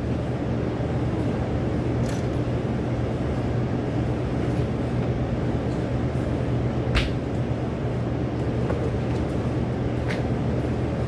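Steady low mechanical hum with a few short clicks.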